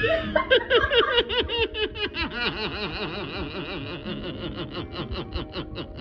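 A person laughing in one long, unbroken run of even, rapid bursts, about five a second.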